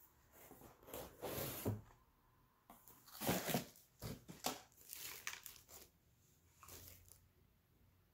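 Packaging crinkling and rustling in several bursts as a plastic sipper cup is taken out and handled, quiet again in the last second.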